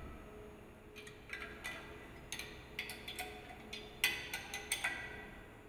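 Steel parts clinking as a flange is fitted into an agitator's lantern and an open-end spanner is worked on its nuts: a run of sharp metal clicks with brief ringing, the loudest cluster about four seconds in.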